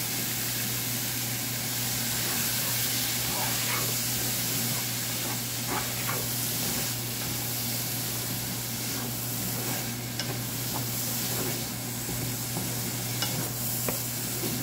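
Pineapple chunks sizzling in a hot honeycomb-pattern stainless frying pan as their juice cooks off. A wooden spatula stirs and pushes them, making scattered light scrapes and clicks against the pan. A steady low hum runs underneath.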